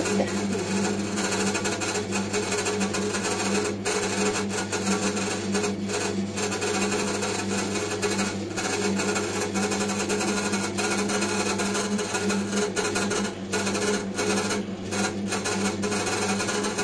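Electric dough-kneading machine running with a steady motor hum, its hook turning in a bowl of bread dough.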